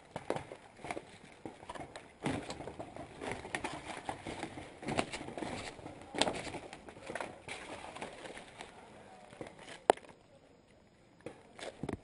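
Dry leaves and twigs crunching and branches scraping as someone pushes through undergrowth, with many small clicks and crackles. There is one sharp crack just before ten seconds in, then it goes quieter for a moment.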